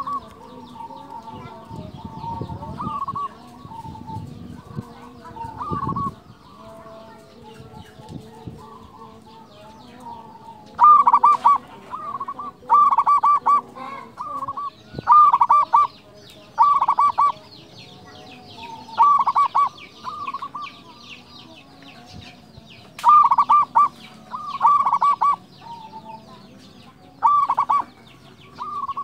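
Zebra dove (perkutut) singing: short phrases of rapid, staccato cooing notes, repeated every second or two, much louder from about a third of the way in. Small birds chirp faintly in the background.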